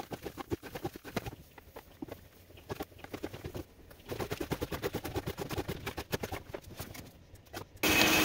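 Grit and debris rattling in quick irregular clicks as they are sucked up a shop vacuum hose from the bilge. Near the end the shop vacuum's motor comes in loud and steady with a high whine.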